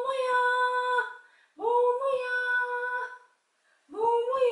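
A woman calls "Momo-ya" three times in long, sing-song calls, each held at one steady high pitch after a short rise.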